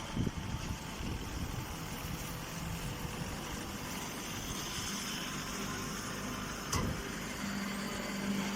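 Engine running steadily with a low hum, with a short knock near the start and another about two-thirds of the way through.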